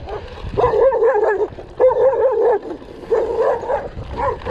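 Dogs barking in quick runs of barks, four bursts about a second apart.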